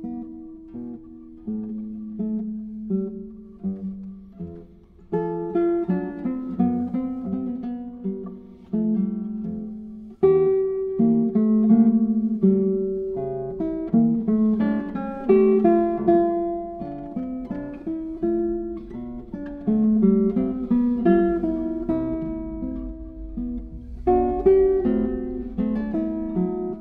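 Solo classical guitar playing, a flowing line of plucked notes and chords that ring out and decay. It gets louder about five seconds in and again about ten seconds in.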